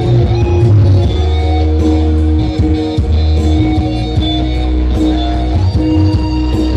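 Loud music led by guitar over a heavy, steady bass.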